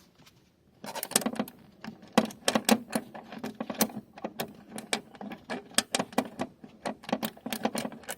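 Ratchet wrench clicking in quick, uneven runs of sharp metallic ticks as it drives in the 10 mm bolt holding the door controller receiver. The clicking starts about a second in and runs on with short pauses.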